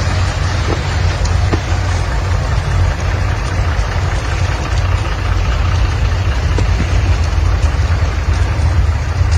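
Heavy vehicle engine running steadily: a low, even hum under a loud wash of noise, with a few faint ticks.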